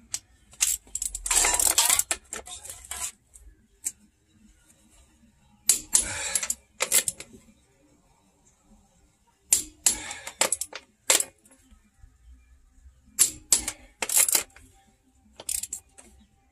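Click-type torque wrench ratcheting and clicking out as wheel lug nuts are tightened to 140 ft-lb one after another. Short runs of sharp metallic clicks come every few seconds.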